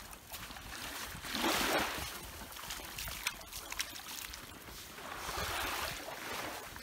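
Wading through shallow seawater: sloshing and splashing, with two louder swells about a second and a half in and again around five seconds in, and small clicks between.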